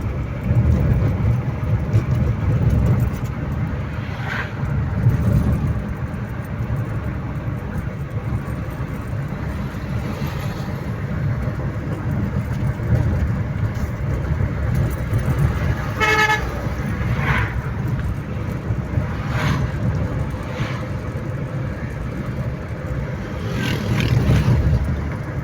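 A steady low rumble with one short, clear vehicle-horn toot about two-thirds of the way through.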